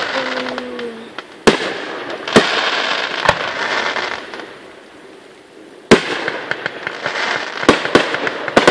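Fireworks display: aerial shells bursting with sharp bangs about once a second, each followed by crackling. There is a lull around the middle, then one loud bang and a quick run of smaller cracks near the end.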